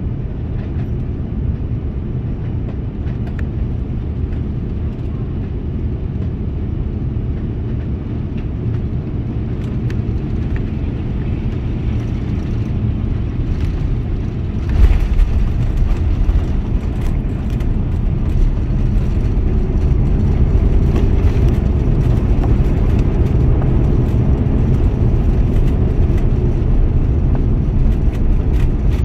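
Cabin sound of an Airbus A350-900 on final approach: steady engine and airflow noise. About halfway through the aircraft touches down with a thump, and a louder rumble of the landing gear rolling on the runway follows, building over the next few seconds with rattles from the cabin.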